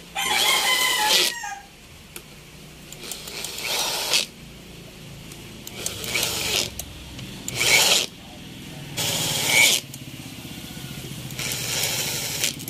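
Power drill with a socket driving the camshaft bearing cap bolts down on a Suzuki K6A three-cylinder twin-cam head, run in about six short bursts of half a second to a second and a half each, with pauses between them.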